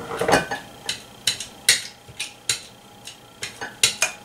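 Spoon clicking and scraping against a ceramic baking dish while spreading a thick ricotta mixture over the bottom, about ten irregular taps and scrapes.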